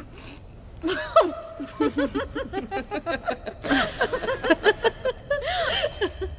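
People laughing and chuckling in quick, repeated bursts.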